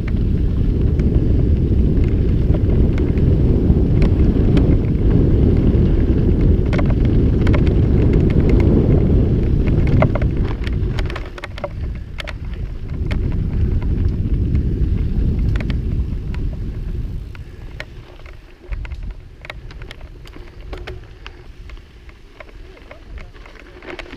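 Mountain bike ridden along a dusty dirt trail: wind rushes loudly over the microphone, with the tyres crackling and the bike clicking and rattling over the ground. The wind noise eases about 11 s in, swells again, and fades away after about 17 s, leaving mostly the scattered clicks and crackle.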